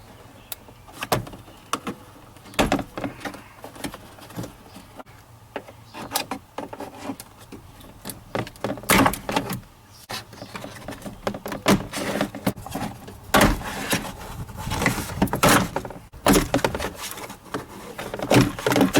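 Irregular plastic clicks, snaps and knocks of a door trim panel being pried off its push-pin clips, busier and louder in the second half.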